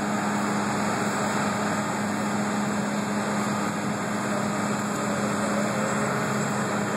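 A motor or engine running steadily: an unchanging hum with a constant low drone.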